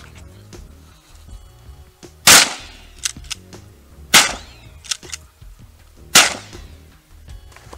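Three shotgun shots about two seconds apart, each a sharp report with a short fading tail, with smaller clicks between them.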